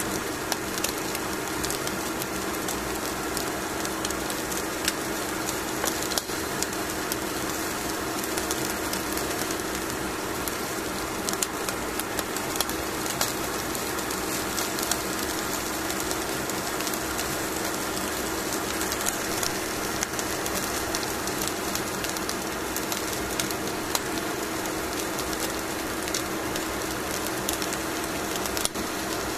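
Hot grilled salmon fillet sizzling on aluminium foil, a steady hiss with many small irregular crackles of spitting fat, over a steady low hum.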